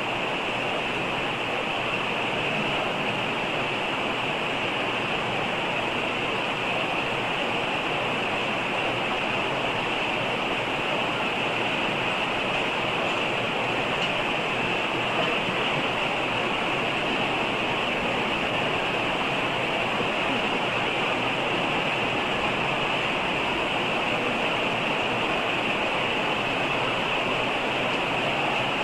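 Steady, even hiss-like rushing noise with no recitation or voices, the background noise of a recorded congregational prayer during a silent stage of the prayer.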